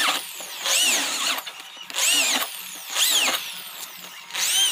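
Corded electric drill boring holes through aluminium window-frame sections with a 3/16-inch bit, in five short bursts about a second apart; each time the motor's whine swings up in pitch and falls away as the trigger is released.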